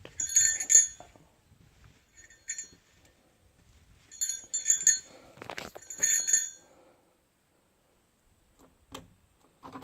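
Light metallic jingling: several clusters of small, bright, ringing clinks, with a longer run of them midway.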